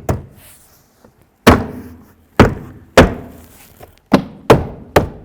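Plastic interior door panel of a Nissan Altima being struck by hand against the door, seven separate thumps, snapping its retaining clips into the door.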